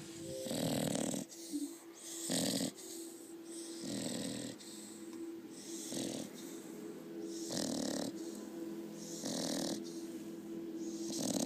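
Seven-month-old Staffordshire bull terrier cross snoring in her sleep, one snore about every second and a half to two seconds.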